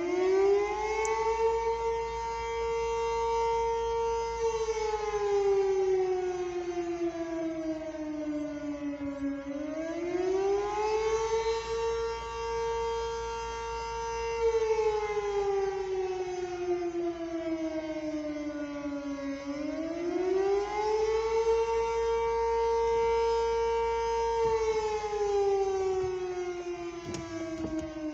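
Civil defense tornado siren wailing during its routine test: the pitch rises, holds for a few seconds, then slides slowly down, repeating about every ten seconds, three times over.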